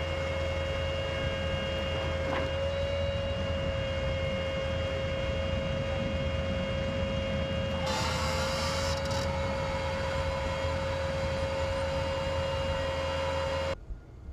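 Vehicle machinery running steadily with a constant high whine over a low hum. A short hiss comes about eight seconds in, and the sound cuts off abruptly near the end.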